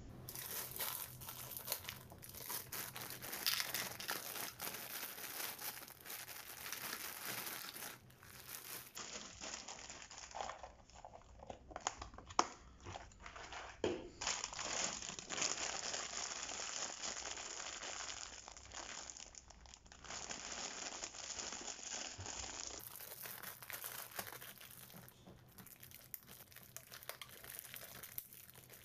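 Clear plastic bag crinkling and rustling as hands squeeze, gather and twist the bag of flakes at its open end.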